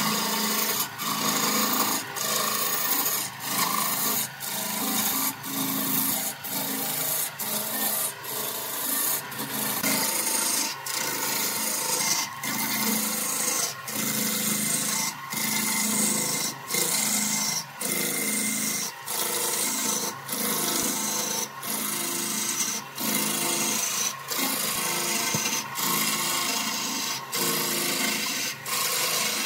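Turning tool cutting into a large spinning wooden cylinder on a wood lathe, a steady rasping hiss of shavings broken by a short dip about every three-quarters of a second.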